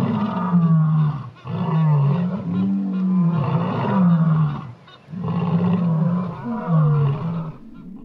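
Loud, deep wild-animal calls in long overlapping bouts, their pitch sliding up and down, with short breaks about a second and five seconds in.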